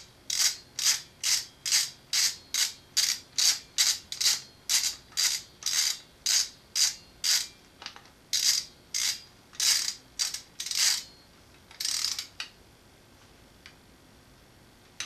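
Ratchet wrench clicking in quick, regular strokes, about two a second, as it tightens a 14 mm idler pulley bolt on a Subaru engine. The strokes slow slightly after about eight seconds and stop about eleven seconds in, with one last stroke a second later.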